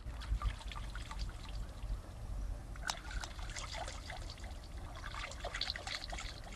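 Water splashing and dribbling as cupped hands scoop it from a shallow stream and let it run back, the splashes busiest from about three seconds in, over a steady low rumble.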